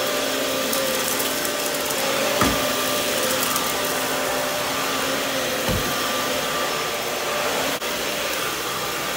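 Vacuum cleaner running steadily over carpet, its motor holding one even pitch, with two low thumps partway through.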